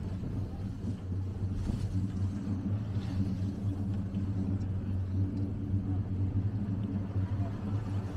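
Gondola lift running as the cabin rides along its cable: a steady low mechanical hum over a rumble.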